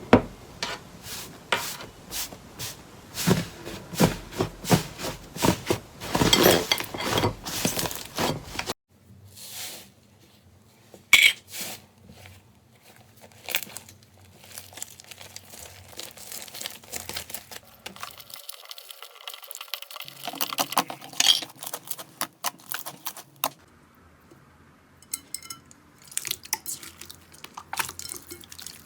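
Slime being squeezed, poked and stretched by hand: dense short wet clicks and crackling pops. The sound cuts abruptly to quieter, sparser clicking after about nine seconds, and again just before two-thirds of the way in.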